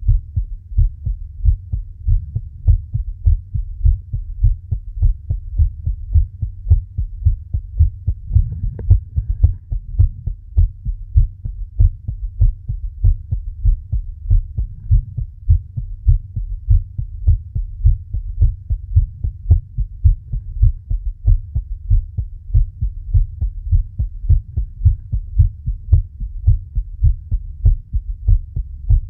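Human heartbeat, a steady, fast run of low thumps that keeps an even rhythm throughout.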